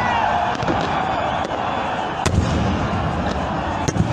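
Fireworks display: aerial shells going off in about five sharp bangs, the loudest a little past the middle, over a steady background of noise.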